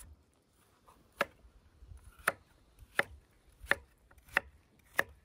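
Knife cutting pumpkin into cubes on a wooden cutting board: six sharp knocks of the blade on the board, a little under a second apart.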